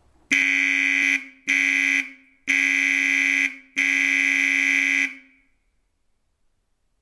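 Vintage Bosch HO/FSA12 dual-tone horn sounded in four blasts of about half a second to just over a second each, with short gaps between them. Each blast is a steady, bright tone.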